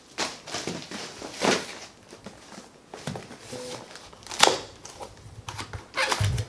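Cardboard shipping box being handled and its tuck-in lid pried open: rustling and scraping of cardboard with sharp clicks, the sharpest about one and a half and four and a half seconds in, and a dull thump near the end.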